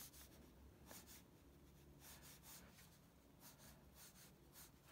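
Faint scratching of a black pencil on paper: several short strokes as straight guide lines are drawn.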